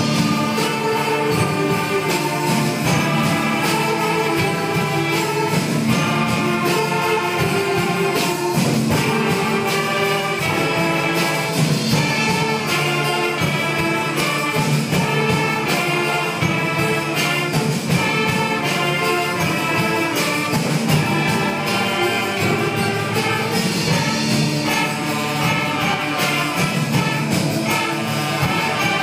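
Middle school concert band playing a piece it is still learning: flutes, clarinets, saxophones, trumpets and trombones over drums.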